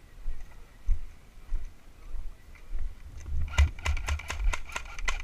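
Low thumps at a walking pace, then, about three and a half seconds in, a fast run of sharp clicks at roughly five a second, each with a brief ringing tone.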